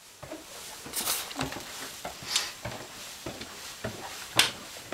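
Camera handling noise: a run of irregular knocks, thumps and rustles as the camera is picked up and moved about, with one sharper bang near the end.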